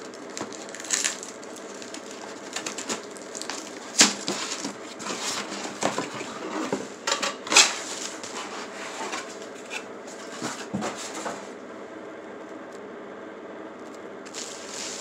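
A comic book mystery box being opened and handled: rustling, scraping and small clicks as the comics inside are moved. Two sharper knocks come about four and seven and a half seconds in, and it goes quieter near the end.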